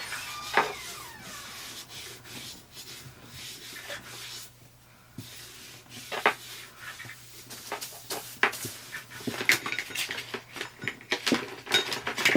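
Small objects being handled and moved about on a desk: soft rubbing, then a run of light clicks and knocks from about six seconds in.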